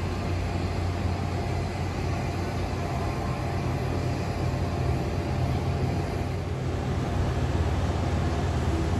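Steady airport ramp noise: a continuous low hum with a hiss over it.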